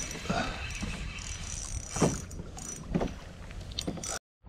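A light spinning reel whining on its drag and being wound as a hooked snapper is played, with wind rumble on the microphone and a few soft knocks about a second apart. The sound cuts out briefly near the end.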